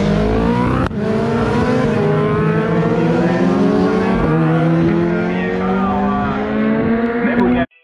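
Superbike racing motorcycles passing the roadside at full throttle one after another, engines screaming at high revs with the pitch slowly climbing as they accelerate. The sound cuts off abruptly near the end.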